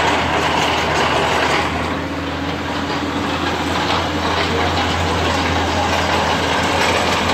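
Compact water-well drilling rig running steadily: a constant low engine drone under a broad mechanical clatter and hiss.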